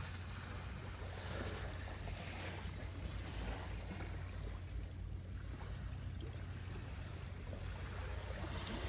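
Wind rumbling on the microphone over the wash of sea waves, the surf swelling and fading a few times.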